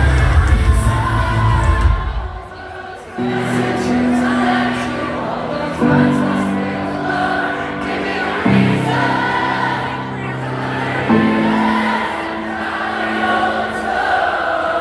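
Band playing live at full volume for about two seconds, then dropping to sustained chords that change roughly every two and a half seconds, with many voices singing over them.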